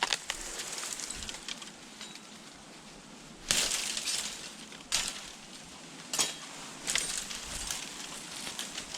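Hollow bamboo stalks clacking and cracking: a handful of sharp hits, the loudest about three and a half seconds in with a short rattle after it.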